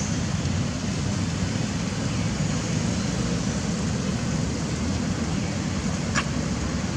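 Steady low rumbling noise, with one short click about six seconds in.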